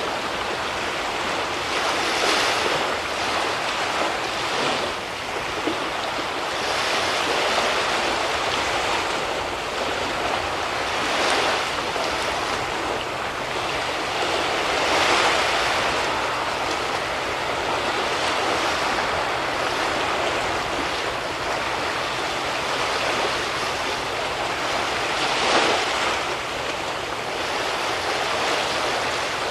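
Sea waves in a bay washing in, a steady rush of water that swells in louder surges every few seconds.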